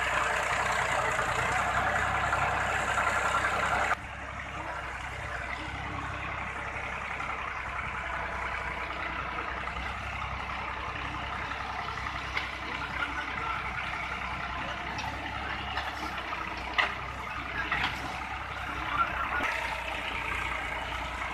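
Massey Ferguson 260 tractor's diesel engine running steadily. About four seconds in the sound drops suddenly and carries on quieter, with a few light knocks in the second half.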